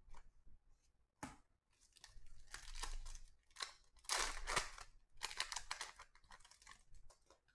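Foil wrapper of a Panini Contenders football card pack being torn open and crinkled, in several rustling bursts, the loudest about four seconds in. A short sharp snap comes a little after one second.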